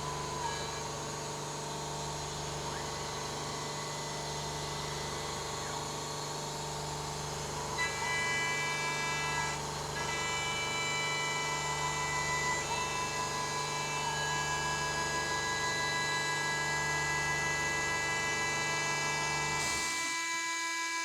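CNC milling machine running a 3D milling pass on aluminium: a steady spindle whine with several sustained tones, and higher motor tones that glide and shift as the axes move. The sound changes abruptly near the end.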